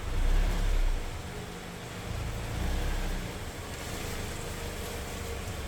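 A car running, a steady low rumble that swells louder early on and then settles.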